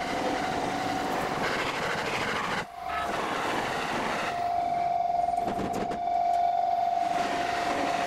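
Railway level-crossing alarm sounding as one steady tone over the rush and clatter of passing electric commuter trains, in audio sped up tenfold. The train noise swells twice, and the sound cuts out for an instant a little under three seconds in.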